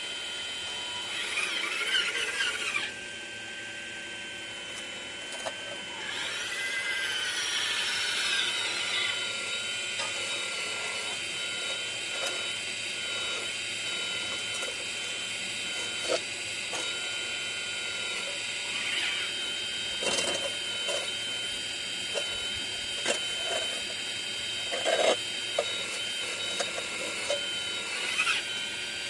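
Radio-controlled John Deere model excavator working: its motors give a steady high whine that sweeps in pitch as the boom and bucket move, with a few short knocks in the second half.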